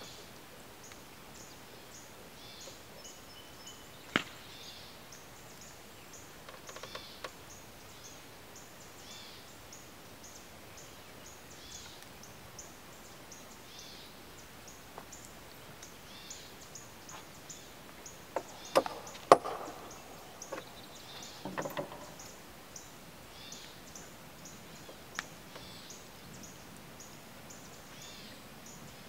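Quiet outdoor evening ambience: insects chirping steadily in a high, rapid rhythm, with a few sharp knocks, the loudest pair about two-thirds of the way through.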